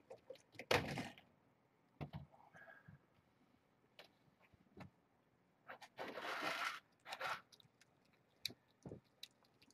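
Cat eating from a food bowl: scattered crunches and clicks at close range, with a louder rustle just under a second in and a longer one about six seconds in.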